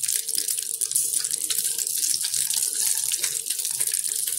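Freshly added raw onion slices sizzling in hot oil in a pan: a steady hiss with fine crackling.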